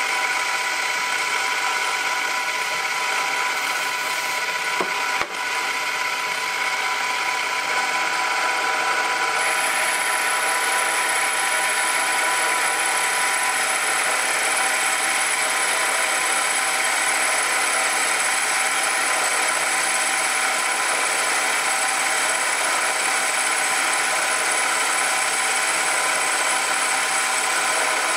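Metal lathe running while the cutting tool takes a light finishing cut along the outside of a piston casting: a steady motor and gear whine over a constant hiss, with one short knock about five seconds in.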